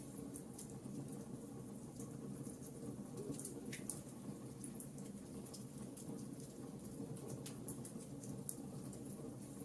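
Campfire crackling: a steady low rumble of burning wood with frequent, irregular sharp pops and snaps.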